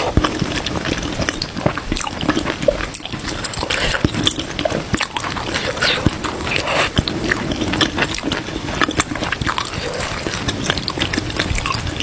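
Close-miked wet eating sounds: irregular chewing, smacking and slurping of food, full of small clicks.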